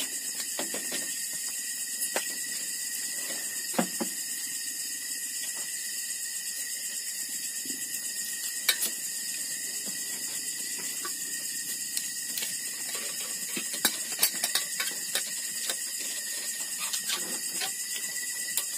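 Steady high hiss with a faint high tone underneath, broken by scattered light clicks and clinks of spoons and dishes as people eat at a table.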